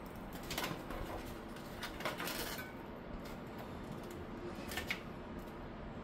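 Light clicks and rattles of hard plastic and metal computer parts being handled in a PC case: three short clatters, the longest around two seconds in.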